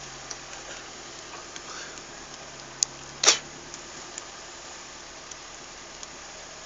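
Off-road SUV engine idling low, with two sharp knocks about half a second apart roughly three seconds in, the second the loudest, and a few faint clicks.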